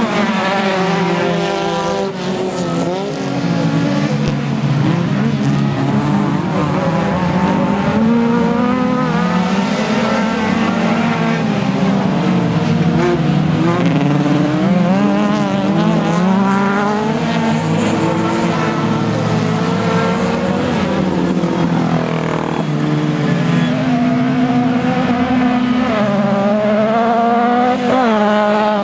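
Several autocross race cars' engines running hard around a dirt track, overlapping, their pitch climbing and dropping repeatedly as they accelerate, shift gear and lift off.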